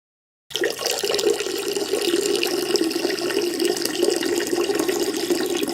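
Peeing sound effect: a steady stream of liquid splashing into water, starting abruptly about half a second in.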